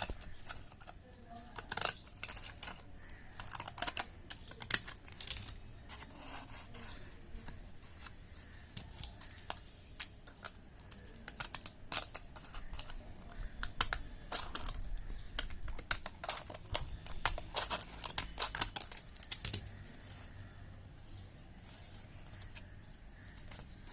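Designer (decorative-edge) craft scissors cutting through a tablet blister strip: a long run of irregular sharp snips and clicks as the blades bite through the stiff strip.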